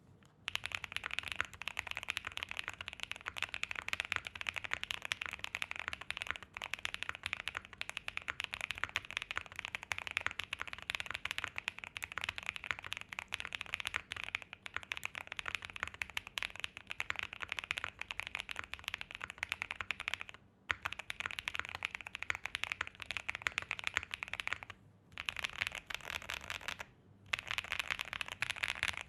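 Fast, continuous typing on a 65% mechanical keyboard in a titanium case with relubed Gateron Quinn long-pole tactile switches, a POM plate, full PE foam and doubleshot PBT keycaps: a dense run of key clicks, described as poppy, creamy and thocky. Typing pauses briefly three times in the second half.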